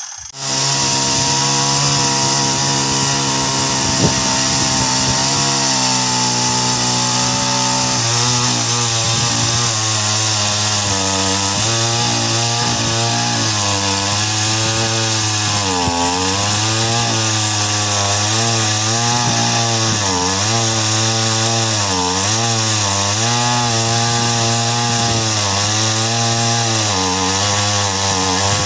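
Petrol chainsaw mounted in a chainsaw mill, ripping a log lengthwise into planks. It runs at a steady high pitch for the first several seconds, then from about eight seconds in the engine pitch repeatedly sags and recovers as the chain loads up in the cut.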